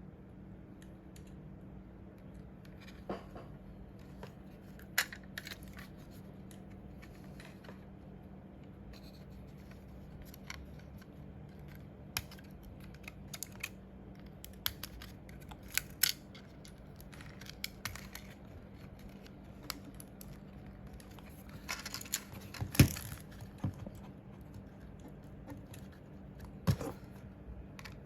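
Scattered small clicks, taps and scrapes of hands handling a plastic computer mouse and its parts during repair, with one sharper knock near the end. A low steady hum runs underneath.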